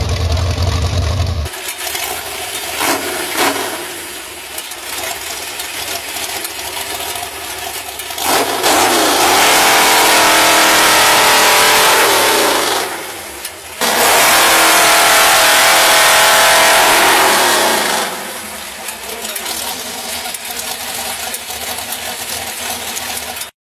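V8 car engine driving a giant chainsaw, running at lower speed, then revving hard twice for several seconds each as the bar cuts through a log, with a short drop between, and settling back to a lower speed afterwards. The sound cuts off abruptly near the end.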